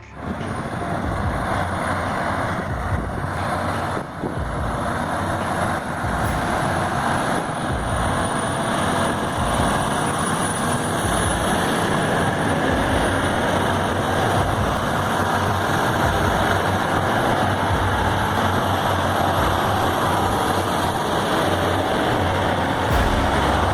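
Heavy vehicle engine running steadily, a low rumble with a noisy mechanical wash over it.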